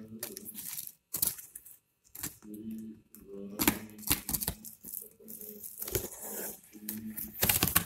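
Cardboard shipping carton being handled and opened by hand: rustling and scraping of the card and flaps, with scattered sharp knocks and taps.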